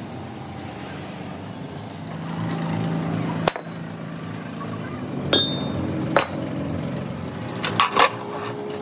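Broken steel axle shaft dropped onto a concrete floor with one sharp, ringing metallic clank, followed by lighter metal knocks and a quick cluster of clinks near the end as it is laid into the vise of an abrasive cut-off saw. A steady machine hum runs underneath.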